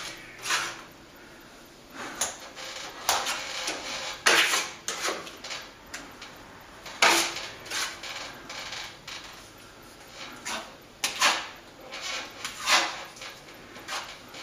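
Small scraper knife scooping cornice cement and daubing it onto a plaster ceiling: many short, irregular scrapes and clacks.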